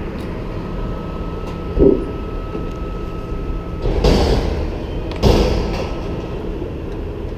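Steady rumble of road traffic, with a low thump about two seconds in and two short rushes of noise around four and five seconds in.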